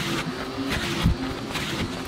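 Vacuum nozzle sucking up debris from a car's floor carpet, its rush rising and falling as it moves. Background music with a low thump about a second in plays underneath.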